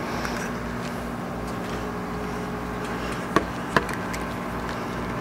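Steady low hum of room equipment, with two sharp clicks about half a second apart a little past halfway, as a small tool and plastic part are handled on the workbench.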